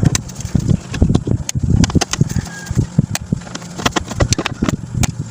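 Irregular clicks, taps and low knocks of hand tools and plastic TV parts being handled while the speakers are fitted into a CRT television.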